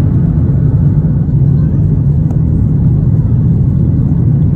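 Cabin noise of a Boeing 737-800 climbing just after takeoff: the CFM56-7B engines and the rushing air make a loud, steady low rumble, heard from a window seat over the wing.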